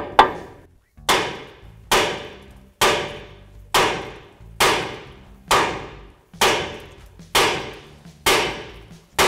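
A heavy hammer striking the steering knuckle of a 2011 Ford F-150 at the outer tie rod end housing: about ten blows at an even pace of roughly one a second, each ringing briefly. The blows are meant to knock the outer tie rod end's stud loose from the knuckle.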